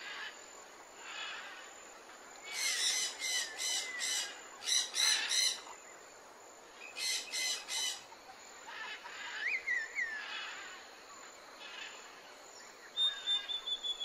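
Birds calling: three bursts of rapid chattering notes, a few seconds apart, then softer sliding chirps and a thin whistle near the end.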